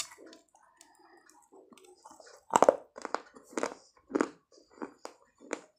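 A person chewing a piece of baked clay pot with loud, gritty crunches. The crunches come about twice a second from about halfway through, after a quieter first half.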